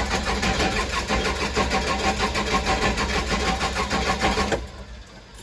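Case 580 Super L backhoe's diesel engine cranking over on the starter with a fast, even rhythm, after hand-priming with a tank run out of fuel. It stops abruptly about four and a half seconds in.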